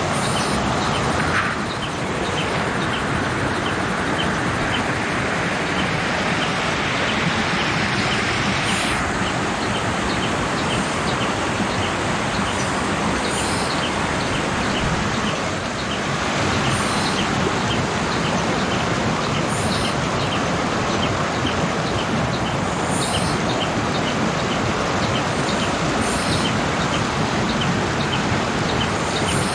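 Waterfall: water falling and rushing steadily, with short high bird chirps repeating throughout.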